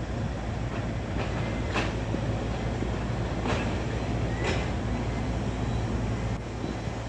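Steady low rumble of heavy diesel construction machinery running, with a few faint metallic clanks.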